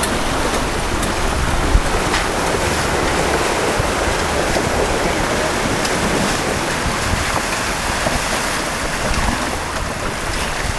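Steady rushing and splashing of creek water as a Jeep Wrangler JK drives through the creek, with its engine running as a low rumble underneath.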